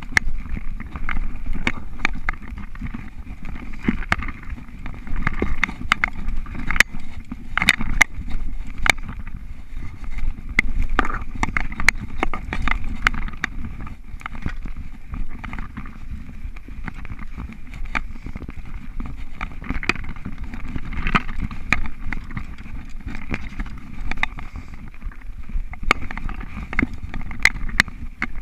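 Mountain bike riding fast over a dirt singletrack: a steady rumble of tyres and frame with frequent sharp rattles and clicks from the bike as it goes over bumps.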